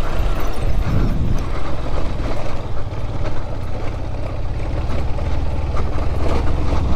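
Yamaha FZS V3's single-cylinder engine running steadily at low speed on a rough gravel track, with a constant low drone and tyre and road noise over it.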